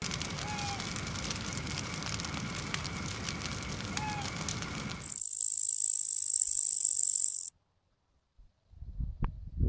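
Small wood campfire crackling, with a faint steady buzz of night insects behind it. About five seconds in it gives way to a loud, high-pitched chorus of night insects, which stops suddenly after two seconds or so.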